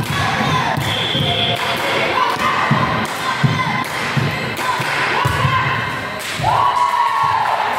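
Ball game on an indoor court: repeated thuds of the ball and players on the floor, with short voice-like calls echoing in a large hall.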